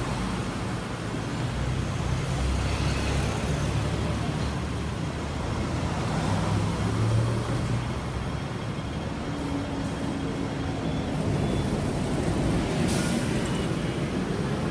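Road traffic, with a double-decker bus's diesel engine running as it drives up and passes close by. A short hiss near the end.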